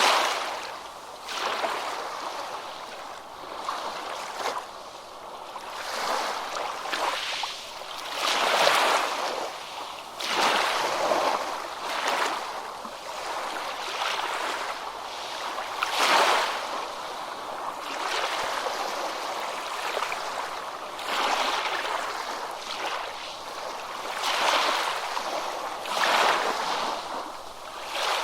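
Ocean surf washing onto a beach: a steady hiss of breaking water that swells and falls back every few seconds as each small wave comes in.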